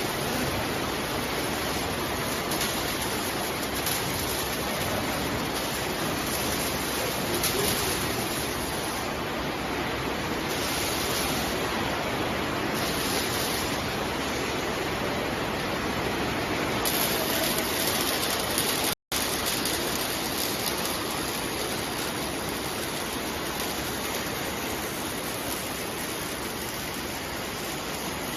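Industrial robot arc welding: the welding arc gives a steady, even hiss, and its higher part brightens and fades a few times. It cuts out for an instant about two-thirds through.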